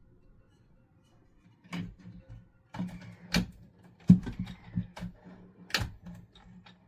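Hard plastic knocks and clicks of a handheld cordless vacuum being fitted onto and handled on its plastic wall hanger: four sharper knocks with lighter rattling clicks between, starting after a quiet second and a half.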